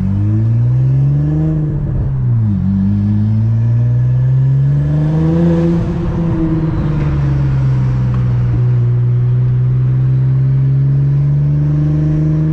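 Car engine accelerating, its pitch climbing and then dropping sharply at a gear change about two seconds in. It climbs again to a peak around five and a half seconds, falls back, and settles into a steady cruise.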